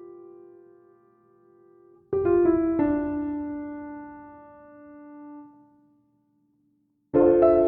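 Background piano music: slow chords struck and left to ring out and fade. The music drops to a brief silence, then a new phrase starts near the end.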